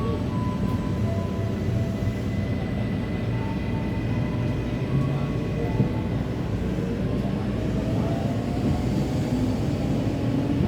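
Tokyo Metro 6000 series commuter train's Hitachi 3-level IGBT VVVF inverter and traction motors whining under acceleration, over the steady rumble of the car running on the rails. Several whine tones rise in pitch in the second half.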